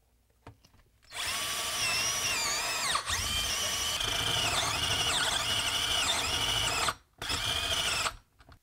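Power drill boring a spade bit through a wooden floor, the motor whining steadily with dips in pitch as the bit bites. It stops briefly about seven seconds in, then runs for about another second as the bit breaks through.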